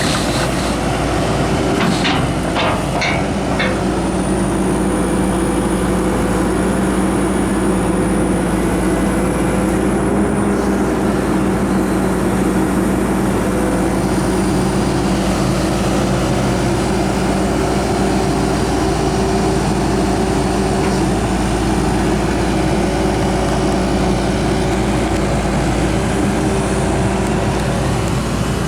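Cat 320DL excavator's C6.4 ACERT diesel engine running steadily, with a faint high whine. A few short clicks come between about two and three and a half seconds in.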